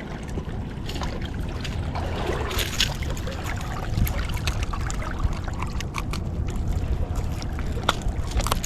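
Water sloshing and trickling under a low rumble of wind on the microphone, with scattered light clicks.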